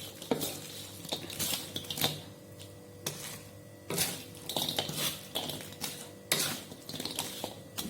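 Spatula scraping and clanking against a pan as fried squid is tossed through salted-egg sauce, in irregular strokes a second or two apart.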